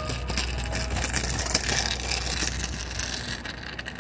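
Kick scooter's small wheels rolling and rattling over sidewalk concrete and asphalt, a steady rough noise with many small knocks, over a steady low hum.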